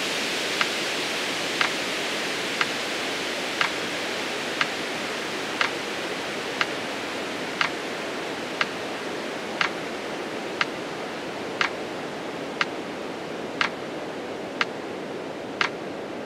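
Metronome ticking once a second, pacing the twenty-count exhale of a pranayama breathing cycle. The ticks sit over a steady hiss that slowly fades.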